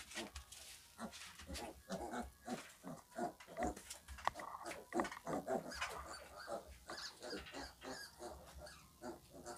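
Several young piglets grunting, many short grunts a second overlapping one another.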